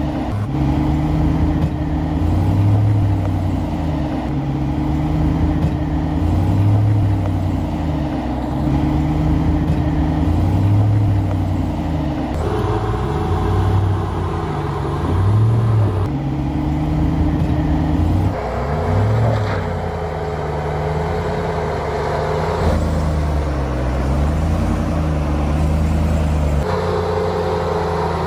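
Ram 1500 TRX's supercharged 6.2-litre V8 running at low speed as the truck crawls over rocks, rising and falling in slow, regular swells. Its tone shifts abruptly several times.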